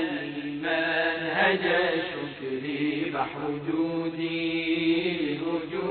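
Unaccompanied religious chanting by a man's voice, with long held notes that bend slowly in pitch.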